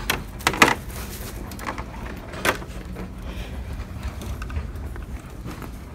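Red plastic shopping cart being taken hold of and pushed: a few sharp knocks and clatters in the first seconds, another at about two and a half seconds, then the wheels rolling with a steady low rumble.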